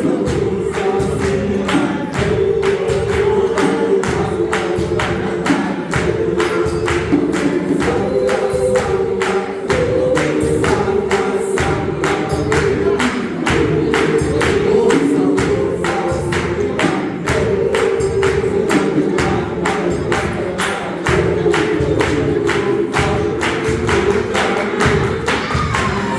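Gospel choir singing in close harmony over a steady, driving beat of sharp percussive strokes, in the clap-and-tap style.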